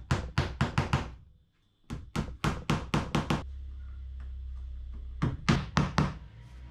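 Hammer tapping small pins into stacked plywood sheets to hold them together. Three runs of quick taps, about five a second, with short pauses between.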